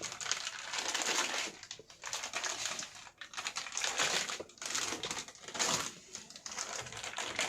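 Plastic packaging crinkling and rustling as a hard drive is handled and unwrapped, in several bursts with short pauses between them.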